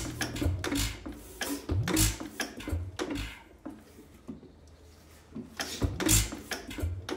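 1930s air-cooled Bamford hit-and-miss stationary engine being turned over by hand at its flywheels, giving irregular thuds and puffs as it tries to fire on a first start. There are clusters of thuds in the first few seconds and again near the end, with a quieter gap between.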